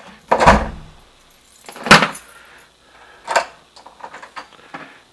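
Handling noise in a closet: three loud knocks and clatters about a second and a half apart, the first with a heavier thud, then a few lighter clicks near the end.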